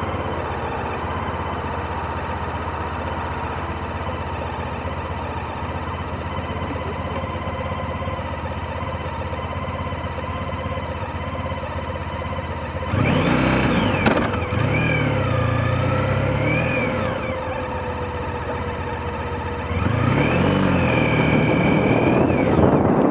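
A motorcycle engine idling steadily. Twice, for a few seconds each, an engine revs louder and its pitch rises and falls: once about halfway through and again near the end.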